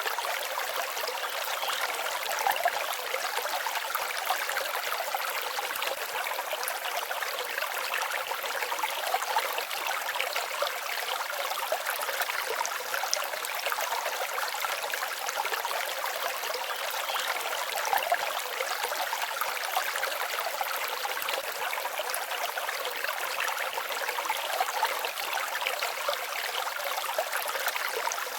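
Forest stream babbling steadily, its water sound full of small brief splashes and gurgles.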